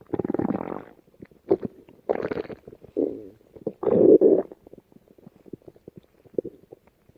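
Stomach growling: a run of about five separate growls in the first four and a half seconds, the loudest a little past halfway, then only faint ticks.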